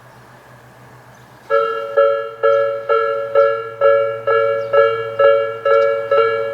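Japanese railway level crossing's electronic warning bell switching on about a second and a half in. It rings a two-pitched ding about twice a second, the alarm that a train is approaching. Before it there is only a low steady hum.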